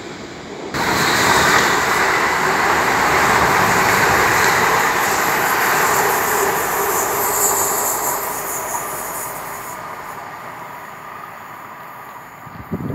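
London Northwestern Railway Class 350 electric multiple unit passing, a loud rush of wheel and rail noise that starts suddenly about a second in and then slowly fades away as the train recedes.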